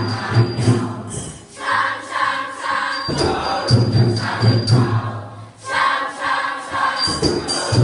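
A junior-high school choir singing a song in parts, in rehearsal, in phrases of a few seconds each.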